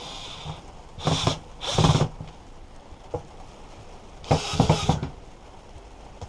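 Cordless drill-driver driving screws into a hedge trimmer's plastic casing in three short bursts, the housing being screwed back together.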